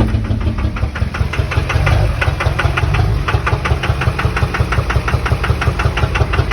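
2003 Duramax LB7 6.6-litre V8 diesel idling just after starting, with a rapid, even knocking over the engine sound. The owner can't tell whether it is a rod knock or a stuck-open injector on cylinder 4 or 6.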